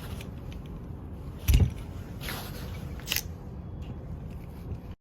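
Handling noises: a heavy thump about a second and a half in, a brief scrape, then a sharp click, over a low rumble.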